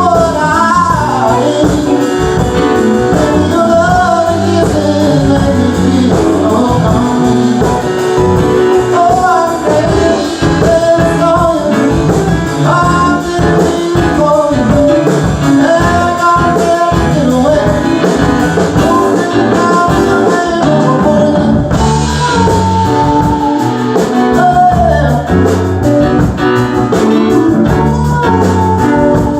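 Live band playing a blues-rock song with a singer and guitar, loud and continuous.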